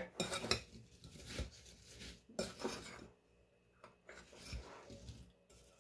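Diced apples being tossed with brown sugar and cinnamon in a mixing bowl: faint, scattered rustling and scraping, with a spoon scraping against the bowl now and then.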